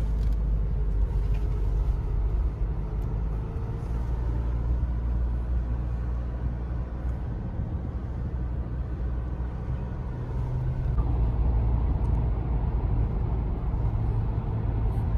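Mahindra Scorpio under way: a steady low rumble of engine and road noise, heard with the roof hatch open.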